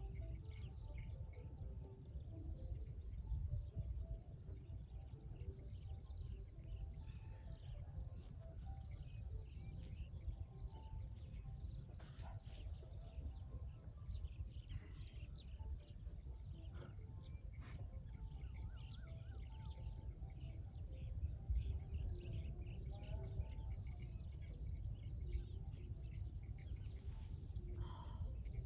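Outdoor nature ambience: high-pitched chirping in short groups, repeating every second or two, typical of crickets or other insects, over a steady low rumble, with scattered bird calls and clicks.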